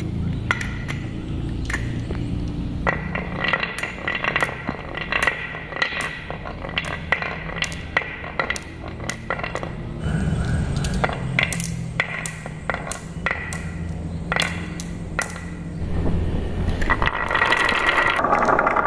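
Glass marbles rolling down a wooden zigzag marble-run track, a low rolling rumble on the wood with many sharp clicks as they strike one another and the channel walls. A louder, steadier noise sets in near the end.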